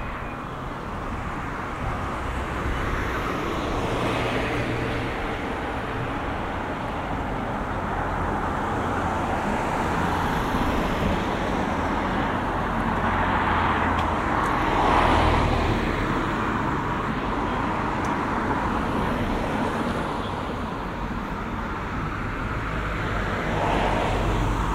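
Road traffic on a village street: cars passing one after another, their tyre and engine noise swelling and fading several times, loudest about fifteen seconds in.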